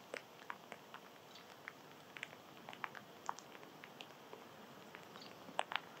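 Faint, irregular small clicks and ticks of small animals feeding on seed, husks being cracked and picked over.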